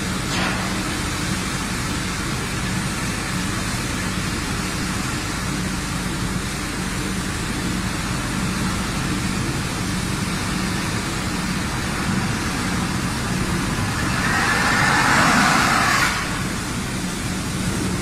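Steady din of a steelworks casting bay while molten steel is poured from a ladle into ingot moulds: a constant hum under a broad hiss. About fourteen seconds in, a louder hiss swells for two seconds and cuts off sharply.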